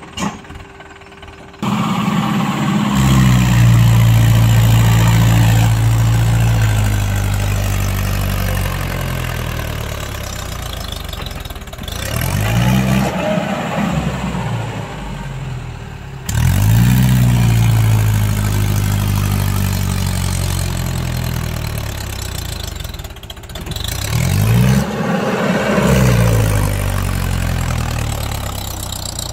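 Mahindra 575 tractor's four-cylinder diesel engine revving hard under heavy load as it drags a loaded sand trailer through deep, soft sand. The revs jump up near the start, then sag and climb again several times.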